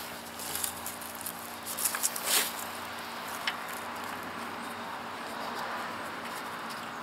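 Gloved hands working at a stopped Predator small engine's oil fill to check the oil: brief rustling and scraping in the first two and a half seconds, one small click about three and a half seconds in, then a steady background hiss.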